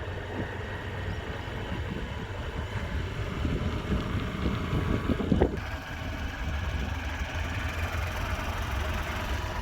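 Motorcycle running at riding speed, a steady engine and road rumble with wind buffeting the microphone, and one brief louder knock about five seconds in.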